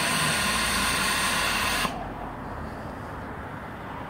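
Steam hissing hard from a vertical fire-tube steam boiler under pressure, then cutting off abruptly about two seconds in.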